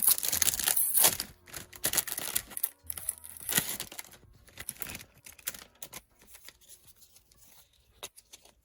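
Plastic packaging being torn open and crinkled by hand, busy and crackly for the first few seconds, then a few light clicks and rustles that die away.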